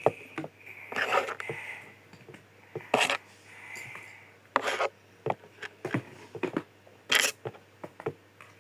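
Small objects being handled and rubbed together: four short, louder scrapes about 1, 3, 4.7 and 7 seconds in, with light clicks between them.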